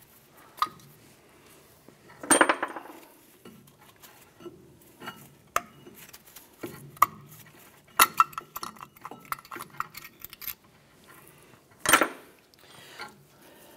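Scattered metal clinks and clanks as the brake pads are worked out of a Chevy S10's front disc brake caliper. The two loudest clanks come about two seconds in and near the end, with a run of quick clicks in between.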